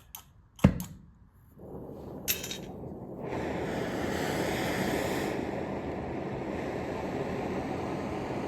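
Oxy-fuel cutting torch cutting through thick steel. After a few sharp knocks in the first second, a hiss builds from about two seconds in and rises to a steady rushing roar about three seconds in as the cut gets going.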